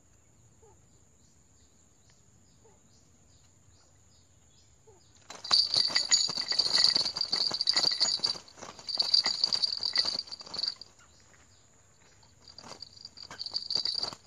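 A rail calling: a fast, dry, rattling run of clicks in three loud bursts, starting about five seconds in after a quiet stretch.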